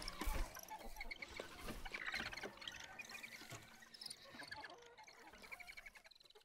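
Faint ambience of many short chirps over a light trickling hiss, fading out at the end.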